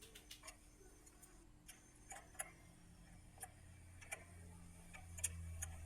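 Scattered light clicks and taps at irregular intervals, as of parts and tools being handled, with a low hum that grows louder about five seconds in.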